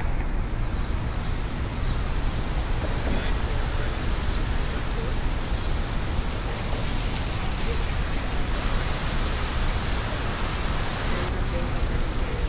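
A steady, even hiss of ambient noise with no distinct events, its high end changing abruptly about eight and a half seconds in and again near the end.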